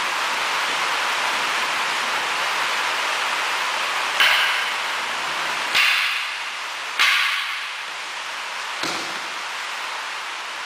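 Wooden practice swords (bokken) clacking together three times, each strike sharp with a short ringing decay and about a second or so apart. Then comes a duller thud as one partner is thrown to the mat, all over a steady background hiss.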